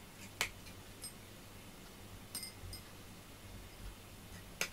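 A cat crunching dry kibble from a bowl: a few sharp, separate crunches, one of them with a light clink about two seconds in.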